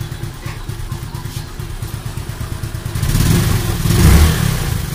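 Suzuki Smash's single-cylinder four-stroke engine running at idle with a steady, rapid low pulse, then revved in short blips from about three seconds in. Just after the tune-up, the idle is still set a little high.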